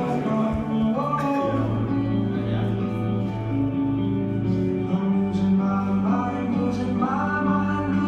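Recorded song playing: singing over sustained instrumental chords and guitar.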